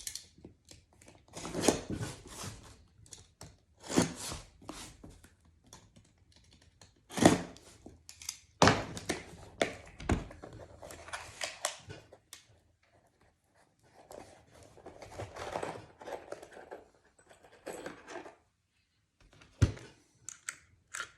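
Handling noise from a Milwaukee M12 cable stapler and its staples: a string of separate knocks and clicks with scraping and rustling in between, as the staple strips are fitted into the tool's magazine groove.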